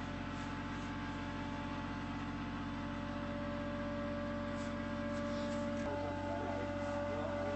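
Steady hum of running machinery with a constant whine over it. About six seconds in, one of its tones drops out and a higher tone comes in.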